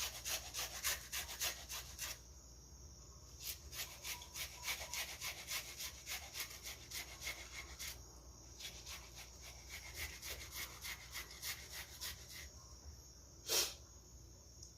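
Food being grated by hand on a grater: quick repeated scraping strokes, about four or five a second, stopping briefly a few times. One sharp knock near the end.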